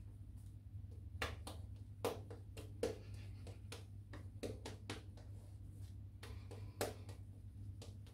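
Shaving brush working soap lather: faint, irregular soft clicks and taps over a steady low hum.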